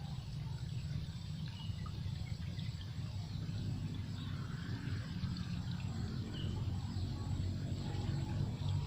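Riverside outdoor ambience: a steady low rumble with faint, scattered high chirps of small wild creatures.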